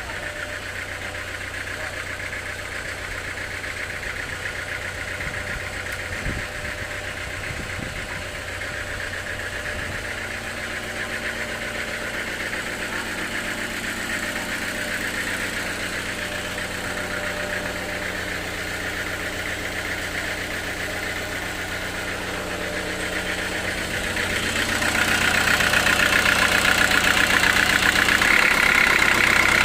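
Sawmill machinery running with a steady hum, getting louder and brighter about 25 seconds in.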